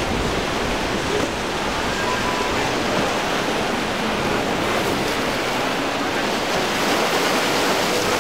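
Steady rush of surf and choppy waves.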